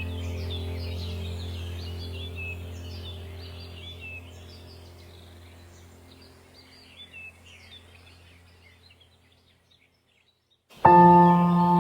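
Many small birds chirping over a low, steady ambient-music drone, both fading out to silence about ten seconds in. A second later, ambient music with several held tones starts loudly, with birds chirping again.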